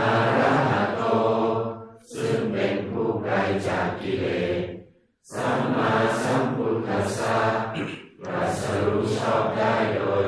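Thai Buddhist morning chanting: a group of voices chanting together in a steady, even-pitched recitation. The phrases run about two to three seconds each, with short breath pauses between them.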